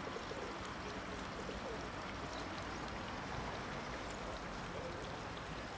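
City street ambience: a steady wash of background noise, with faint distant voices in the first second or so and a few light clicks.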